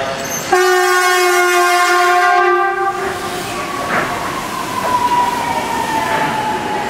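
Yui Rail 1000-series monorail sounding its horn: one steady, many-toned blast of about two and a half seconds. It is followed by the inverter (VVVF) whine, a single tone slowly falling in pitch as the train brakes into the platform.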